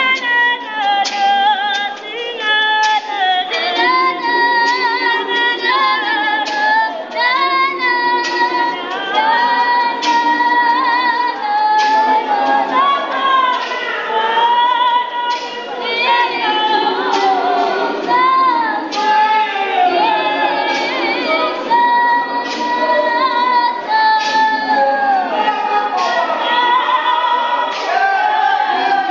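Women's church choir singing together in several voices, over a steady beat of sharp knocks.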